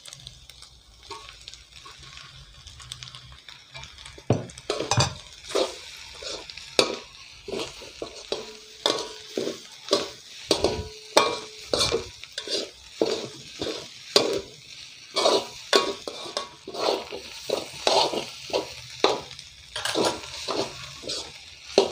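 Shredded parotta, egg and vegetables frying in a metal wok with a steady sizzle. From about four seconds in, two metal spatulas stir and toss the mix, knocking and scraping against the pan roughly twice a second.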